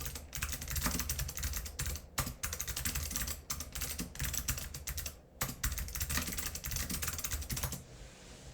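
Fast typing on a mechanical keyboard with Alps SKCM Blue clicky switches, unlubed, and PBT keycaps: dense runs of sharp clicks, pausing briefly twice and stopping about a second before the end.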